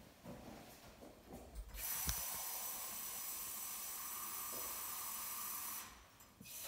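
Kitchen tap running water into a saucepan of potatoes: a steady hiss that starts about two seconds in and cuts off suddenly about four seconds later.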